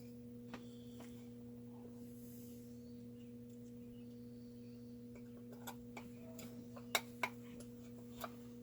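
Steady low electrical hum, with a few faint clicks of small parts being handled and two sharper clicks about seven seconds in.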